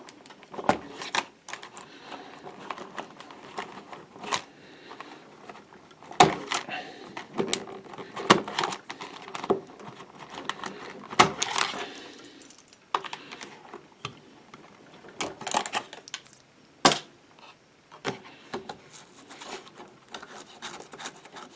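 Handling noise inside a small plastic ammo-can battery box: an uneven run of clicks, knocks and rattles with rustling between them, as wire connectors are pulled off and the USB and cigarette-lighter sockets are worked loose and lifted out.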